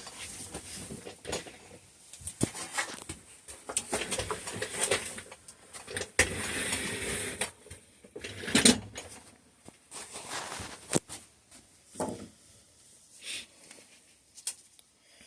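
Hand-tool work on a bicycle suspension fork: scattered metal clicks and knocks of a wrench and parts being handled, with a scraping rustle about six to seven seconds in and a sharp knock just before nine seconds.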